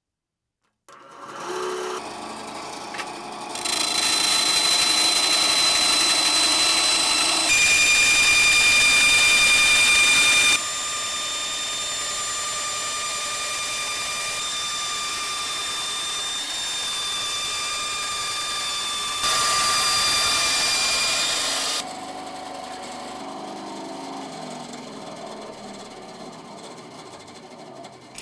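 A small power tool running at a steady high pitch, heard in several short takes that cut abruptly from one to the next.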